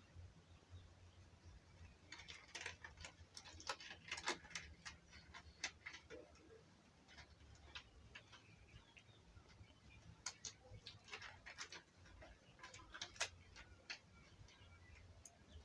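Faint scattered clicks and light taps, as of small objects being handled, over a low steady hum.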